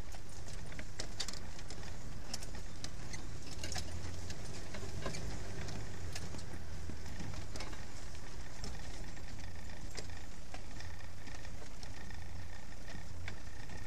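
Land Rover driving slowly over a rough bush track: a low, steady engine rumble with frequent clicks and rattles.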